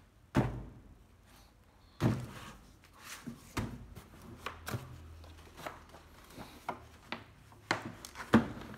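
A hard plastic power-tool carrying case being handled and opened: a string of knocks and clicks from latches and plastic, the loudest about half a second and two seconds in, with many lighter clicks later on.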